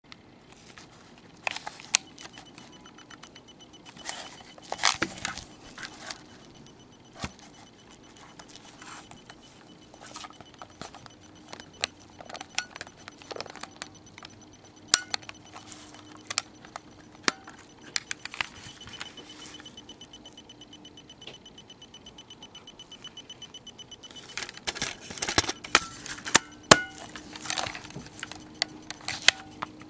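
Handling of an Olympus compact 35 mm film camera: many sharp plastic clicks and taps from fingernails and fingers on its body and sliding front cover, scattered throughout and thickest near the end. A faint steady tone runs underneath in the second half.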